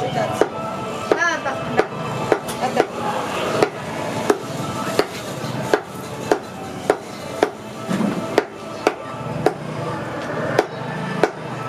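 A cleaver chopping on a wooden block, about two sharp strikes a second, with background music underneath.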